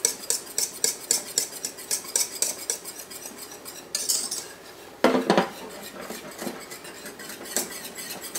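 Wire whisk clicking and scraping in a quick, even rhythm against a stainless steel saucepan as pastry cream thickens. About five seconds in there is a sudden knock as the pot is set back down on the electric coil burner, and then the whisking carries on.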